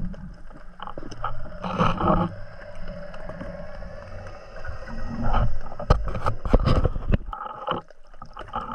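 Muffled underwater sound picked up through a camera housing as a spearfisher swims with fins: a low rush of water movement, with a louder burst about two seconds in and a run of sharp knocks and rushes between about five and seven seconds.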